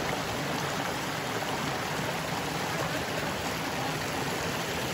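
Shallow rocky stream rushing and splashing over boulders in a small cascade, a steady even rush of water.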